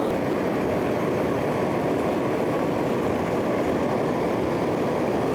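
Gas torch burning with a steady, loud roar, heating lead to melt it.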